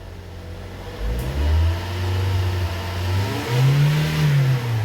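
Toyota Corolla 1.8 16-valve engine, air conditioning on, being revved: it climbs about a second in, holds, then rises and falls again near the end. The noise from the accessory belt drive, a vibration-like sound at idle, stops when the engine is revved and returns when the throttle is released; the mechanic suspects a bad bearing or tensioner on the accessory belt.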